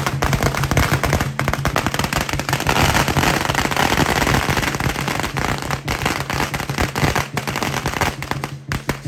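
A long string of firecrackers going off in a rapid, continuous crackle, thinning out near the end, over steady background music.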